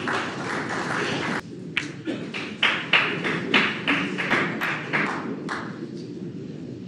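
Arena audience applauding, the dense clapping breaking up after about a second and a half into scattered individual claps that die away near the end.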